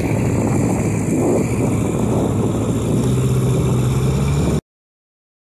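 Small boat's outboard motor running steadily under way, with wind and water noise; its pitch steps up slightly about three seconds in. The sound cuts off abruptly to silence about four and a half seconds in.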